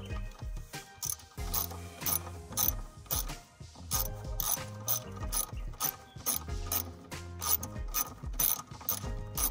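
Ratchet wrench clicking in steady strokes, about four clicks a second, as a fastener is turned.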